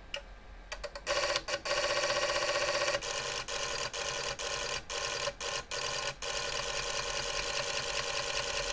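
Xiegu G90's internal automatic antenna tuner searching for a match on 24 MHz: a steady buzz with irregular relay clicks over it as the tuner steps through settings. The search is slow.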